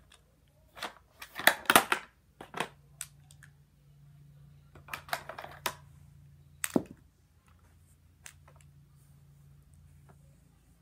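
Lipsticks and other small plastic makeup items being rummaged through and handled: scattered clicks and rattles, busiest in the first two seconds, with a sharp knock near seven seconds. A faint steady low hum sets in about two and a half seconds in.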